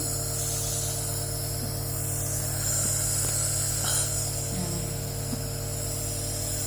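Compressor nebulizer running: a steady electric hum with a constant hiss of spray as it turns liquid medicine into mist for inhalation.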